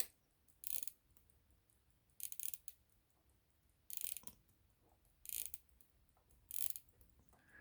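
Short bursts of fine metallic clicking from a 16-size Majestic pocket watch movement being handled, coming five times at intervals of about one and a half seconds.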